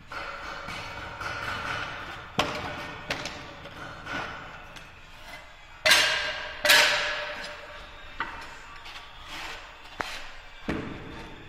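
Ceramic tiles knocking and clinking together as they are handled: a string of sharp knocks, the two loudest close together about six seconds in, each with a brief ring.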